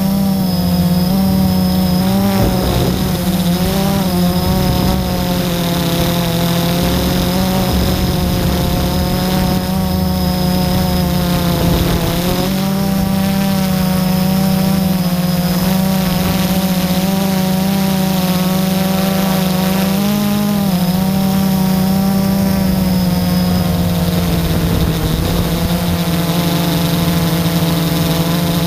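Blade 350 QX quadcopter's electric motors and propellers, heard from its onboard camera: a loud, steady hum whose pitch wavers and dips briefly a few times as the throttle changes in flight.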